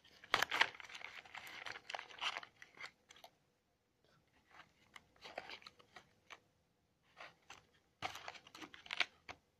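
A cardboard Smarties box being torn open further and handled, giving crackly tearing and rustling in three short spells with quiet gaps between them.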